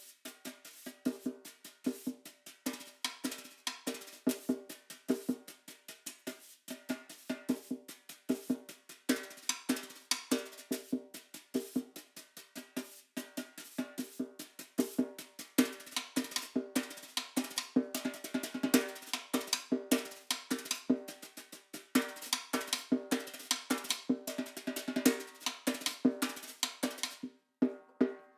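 Solo snare drum played in fast, intricate patterns of strokes, rolls and sharper rim-like clicks, growing denser about halfway through and breaking off briefly near the end.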